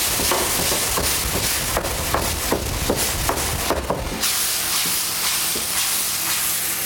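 A pan of bacon, onion and gherkin, just deglazed with beef bouillon, sizzling and steaming hard as the pan-bottom residue dissolves into the sauce. For the first four seconds or so the pan is moved about, with quick scraping knocks over the hiss; after that it sizzles more evenly.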